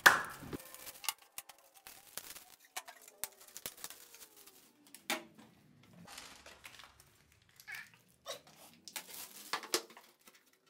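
Picture frames being handled on a wooden table: a sharp knock at the start, then scattered clicks, taps and light rustles as frames are picked up, turned over and set down.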